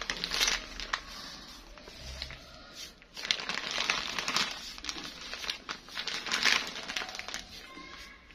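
Thin plastic bag crinkling and rustling as it is handled around bundled wet hair: a short bout at the start and a longer, louder one from about three seconds in.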